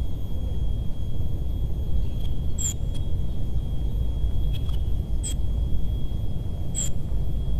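Wind buffeting an outdoor microphone, heard as a steady low rumble. A faint steady high tone runs underneath, and three short high clicks come at intervals of one to two and a half seconds.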